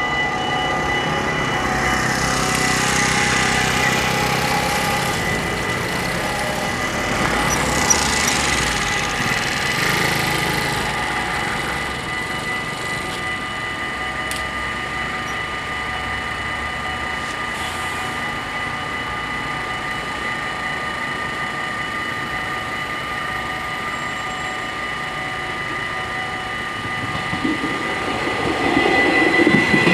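Dutch level-crossing warning bells ringing steadily as several fixed tones, over road-traffic noise that fades after about twelve seconds. Near the end an Arriva Stadler GTW diesel-electric train comes in, its rumble quickly getting louder.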